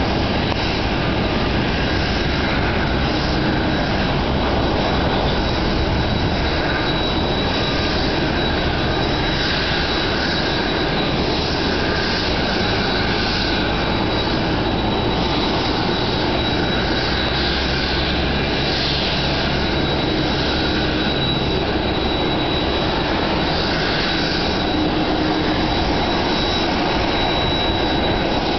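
Jet engine noise from an Airbus A380 coming in to land: a steady rushing sound with a thin, constant high whine over it.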